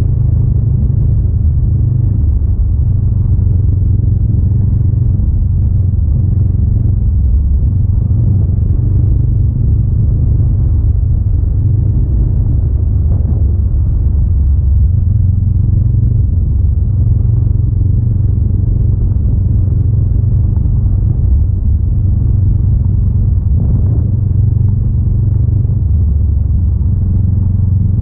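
A Honda Rebel 500's parallel-twin engine running steadily while the bike rides along an unsealed road. It is a low, even rumble whose pitch shifts a little as the speed changes.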